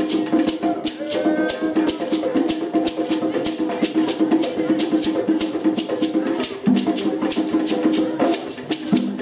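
African percussion: a hand shaker rattling in a steady fast pulse, about five shakes a second, over hand drums and voices.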